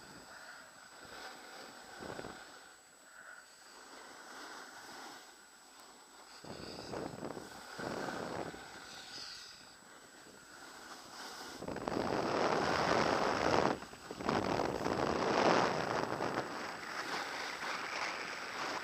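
Skis sliding and scraping over groomed snow, with wind rushing over the microphone of a camera carried by a moving skier. Faint at first, then swelling in long surges with the turns, loudest in the last third.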